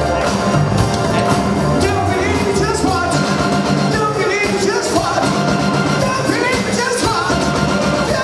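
Live band playing a song: electric guitar, electric bass and drum kit, with a singer's voice over the music.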